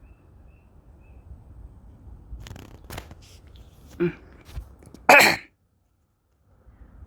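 A person sneezing close to the microphone about five seconds in, after a few faint clicks; the sound then cuts out completely for about a second.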